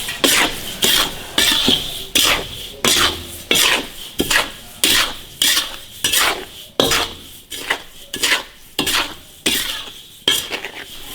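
A metal spatula scraping around a hot iron wok, stir-frying salt with dried chilies and green Sichuan pepper: one rasping stroke about every 0.7 seconds.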